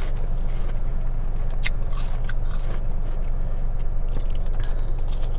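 Chewing and crunching a mouthful of frost ice, with a few crisp crunches and soft squishing, over the car's steady low rumble.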